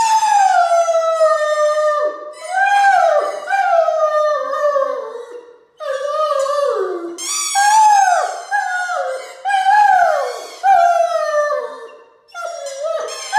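Harlequin Great Dane howling: about a dozen long howls in a row, each sliding down in pitch, with short breaks between.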